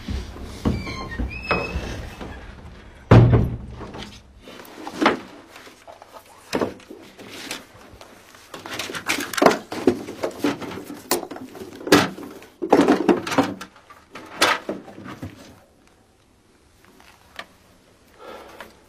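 Scattered knocks, thuds and clunks of wooden boxes and stored furniture being moved about, the heaviest a thud about three seconds in; the sound thins out towards the end.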